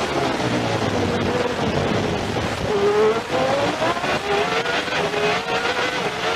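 Williams Renault Formula 1 car's Renault V10 heard from the cockpit at racing speed. The engine note falls as the car slows for a corner, then climbs again in several steps through upshifts as it accelerates away.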